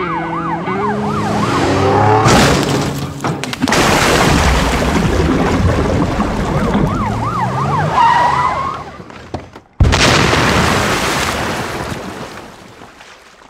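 Police siren wailing in a rapid up-and-down yelp, with a loud explosion rumble building about two seconds in and the siren heard again through it. Near ten seconds, after a brief near-silent gap, a second sudden blast starts and fades away.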